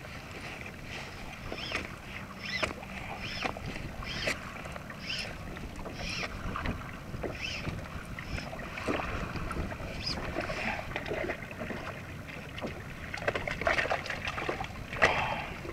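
Small waves slapping against the hull of a plastic sit-on-top kayak in a run of short light splashes, with some wind. Near the end there is louder splashing beside the hull as a hooked fish is brought alongside.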